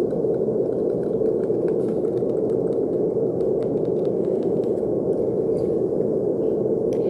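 Steady brown noise: a deep, even rushing hiss that does not change. Faint small clicks flicker over it now and then.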